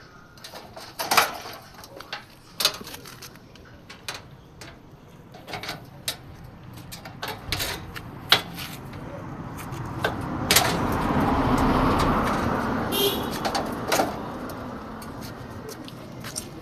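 Scattered sharp knocks and clanks of work on the air-conditioner unit. About ten seconds in, a broad swell of noise rises and fades away over some five seconds.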